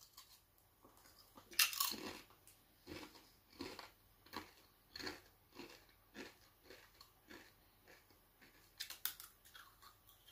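A person chewing a Doritos tortilla chip with the mouth close to the microphone: a crisp bite about one and a half seconds in, then a steady run of crunches roughly every two-thirds of a second, with a couple of louder crunches near the end.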